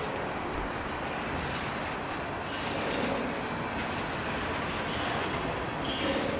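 Loaded freight cars of a CSX manifest train rolling slowly past, a steady noise of steel wheels running on the rails with light rattling of the car bodies. The cars are being shoved in reverse into the yard, with the locomotives out of earshot.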